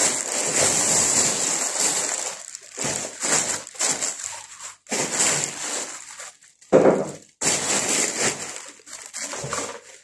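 Thin plastic bag rustling and crinkling as it is pulled open and handled, in irregular bursts, loudest about seven seconds in.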